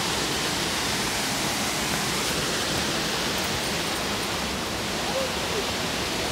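Waterfall close by: falling water makes a steady, even rushing noise.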